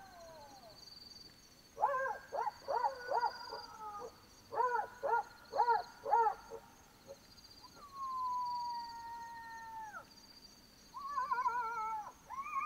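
Black-backed jackals calling: two quick runs of short rising-and-falling yelps, then one long, slightly falling howl that drops off at the end. Near the end, several overlapping, wavering howls set in together as a chorus.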